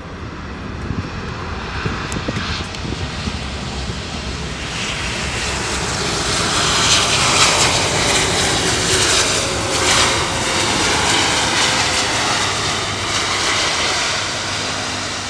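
Airbus A330-300 jet engines during its landing roll, a continuous roar that builds to its loudest in the middle and then fades as the airliner passes.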